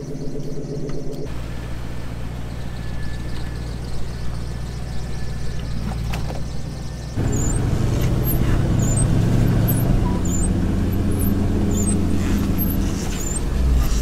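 Off-road recovery rig's engine running steadily, with a louder, fuller hum from about seven seconds in, heard from inside the cab while it is driven.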